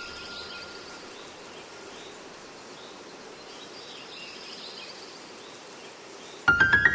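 Steady outdoor ambience with faint bird chirps over a soft hiss. Half a second before the end, a quick run of loud bell-like notes starts the background music.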